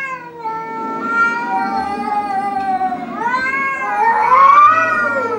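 Angry domestic cat yowling in two long, drawn-out wails: the first slowly falls in pitch, the second is louder and rises then falls near the end.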